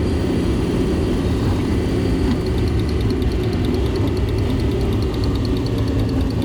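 Heavy vehicle engine running steadily with a loud low rumble; about two seconds in, a fast, even ticking of several clicks a second starts over it.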